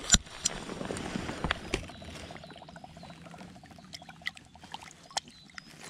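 Water splashing and trickling as a brown trout is held in a shallow stream and released by hand. There are a couple of sharp splashes right at the start, then quieter dribbling.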